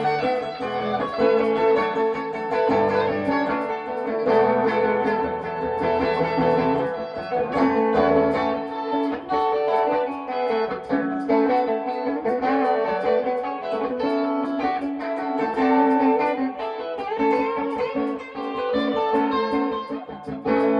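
Instrumental guitar music from a rock and rhythm-and-blues song: a guitar plays sustained melodic notes over a backing part, with no singing.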